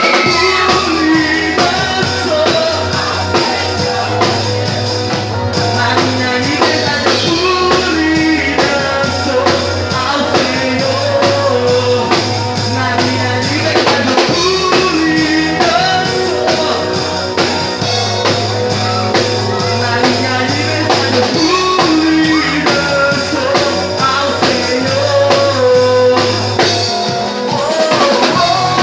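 A rock band playing a song with drum kit, bass and electric guitar, and a voice singing over it.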